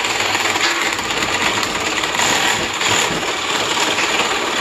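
Corded reciprocating saw with a carbide-tipped blade running steadily as it cuts through the copper tube bends and metal end plate of an air-conditioner coil.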